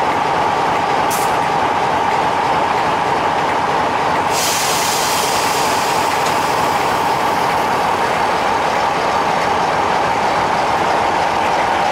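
British Rail Class 50 diesel locomotive's English Electric V16 engine running steadily, with a strong high note in its sound. A short hiss of air comes about a second in, and a longer air hiss starts about four seconds in and carries on.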